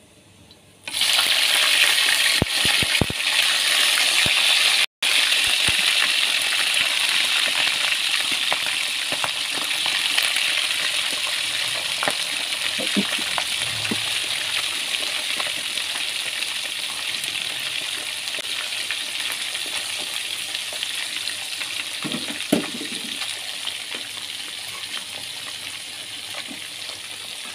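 Chicken pieces deep-frying in hot oil. A loud, steady sizzle starts suddenly about a second in, with a few sharp crackles just after, then slowly grows quieter as the frying settles.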